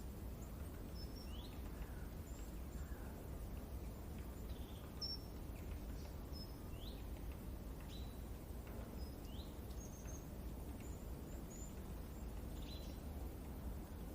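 Sparse, short bird chirps, one every second or so, over a steady low rush of wind.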